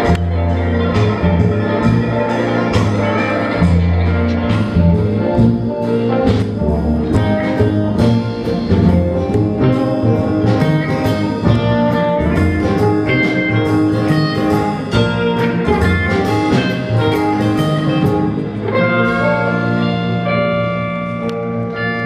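Live band playing an instrumental passage with archtop electric guitar and upright bass, no singing. Near the end it eases into long held notes.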